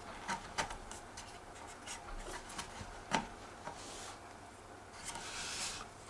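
Plastic prop guard being fitted onto a quick-disconnect mount on a DJI Phantom 2 quadcopter's motor arm: a few sharp plastic clicks, the loudest about three seconds in, and quiet handling and rubbing, with a short rub near the end.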